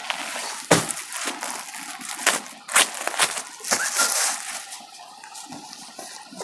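Clear plastic garment packet crinkling and crackling as a frock is pulled out of it, in a run of sharp rustles that die away after about four and a half seconds.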